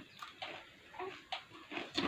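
Mouth noises of people eating pani puri quickly: a quick, irregular run of short chewing and crunching sounds.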